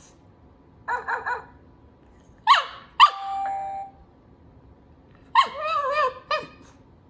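Babble Ball talking toy ball playing its recorded sounds in three goes: a quick run of three short yelps about a second in, two sharp falling bark-like calls followed by a steady electronic chime in the middle, and a warbling, voice-like call near the end.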